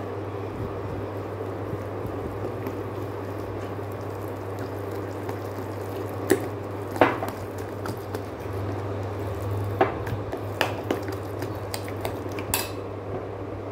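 Metal spoon stirring a thick rice-flour paste in a glass bowl, with several sharp clinks of the spoon against the glass in the second half, over a steady low hum.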